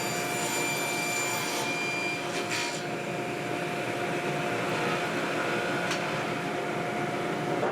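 Electric power tool running steadily, a motor whine with a few steady tones over a noisy hiss; the higher tones drop out about two and a half seconds in.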